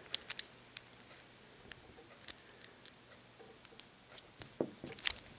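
Faint, scattered small metallic clicks and ticks of a paperclip wire working in a lock's keyway as it is bent into a tension wrench, with a quick cluster of clicks at the start.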